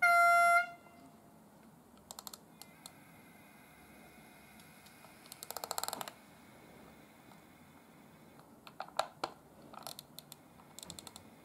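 A short, loud horn toot from the sound decoder's small loudspeaker in the N-scale class 627 railcar model, then scattered light clicks, with a quick run of them about six seconds in.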